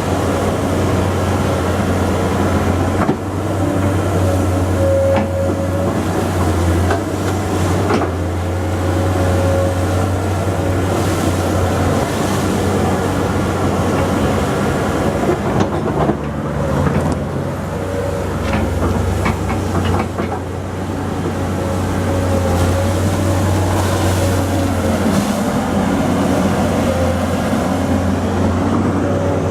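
Excavator running steadily under work, a low engine drone with a thin steady whine above it. A few sharp clanks, most clustered in the middle.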